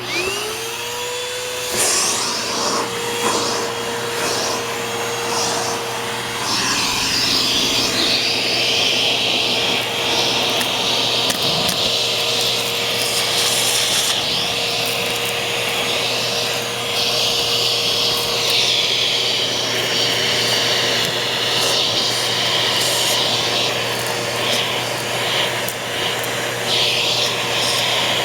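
Eureka Boss Smartvac 4870 upright vacuum cleaner switched on: the motor whines up to speed within about a second and a half, then runs steadily. Over the steady motor tone, the rushing air swells and fades as it is moved about.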